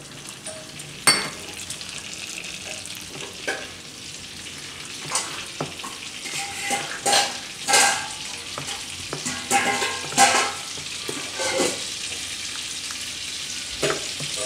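A spoon stirring idli batter in a bowl, with scrapes and sharp clinks about a second in and again around eight and ten seconds. Behind it runs the steady sizzle of butter and oil heating in a kadai.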